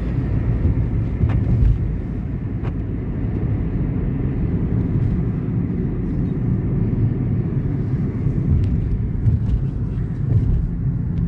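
Car cabin road noise while driving: a steady low rumble of engine and tyres heard from inside the car, with a few faint ticks in the first few seconds.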